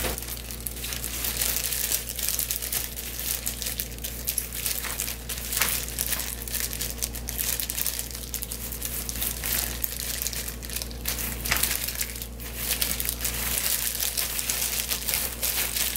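Disposable plastic gloves and a plastic sheet crinkling in a dense, irregular crackle as gloved hands smear kimchi seasoning paste onto salted napa cabbage.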